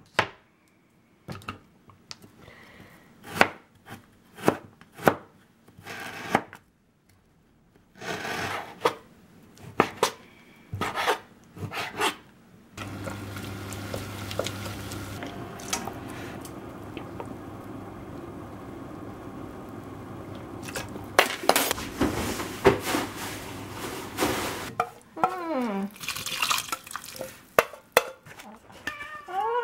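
Kitchen knife chopping on a plastic cutting board in separate knocks. Then a steady sizzle as food is stir-fried in a pot, with chopsticks clicking against the pot. Near the end there is more clatter of cookware.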